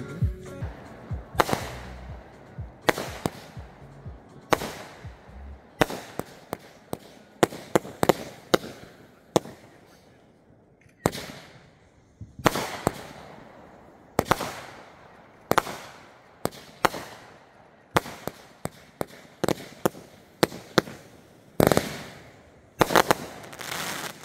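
Aerial fireworks going off: a long run of sharp bangs, one or two a second, many followed by a fading crackle. There is a short lull about ten seconds in.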